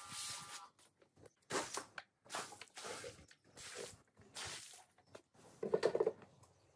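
Water splashing onto a soaped rug in several separate splashes on a wet floor, with a short run of wet squelching near the end.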